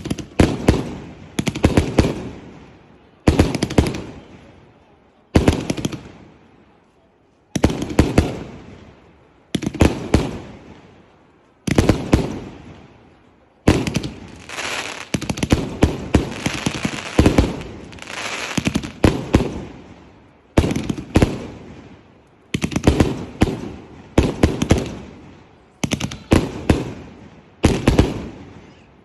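A 100-shot Chinese firework cake firing: volleys of sharp bangs every couple of seconds, each trailing off into crackle. About halfway through the crackle runs on almost without a break, and the volleys come faster in the last third.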